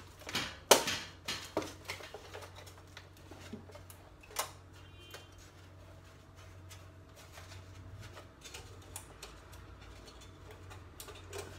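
Metal clicks and taps from hands working the steel mounting bracket and centre fastening of an electric cooktop hotplate as it is being removed: a few sharp clicks in the first two seconds, then scattered faint ticks over a low steady hum.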